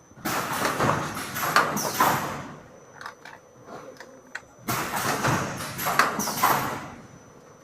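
Automatic cup filling and sealing machine working through its cycle: two loud bursts of hissing and clattering about four and a half seconds apart, each with a sharp clack and lasting about two seconds.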